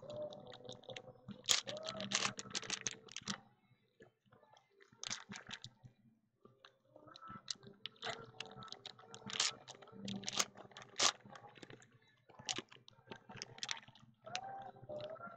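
Foil wrappers of Panini Prizm retail card packs crinkling and tearing as the packs are ripped open, in irregular crackling bursts with short pauses between.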